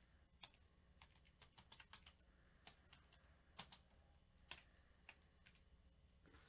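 Near silence with faint, irregular small clicks and taps.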